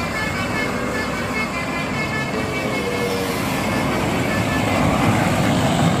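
Road traffic: engine and tyre noise from a coach driving away, then a light pickup truck passing close, its engine and tyre noise building near the end.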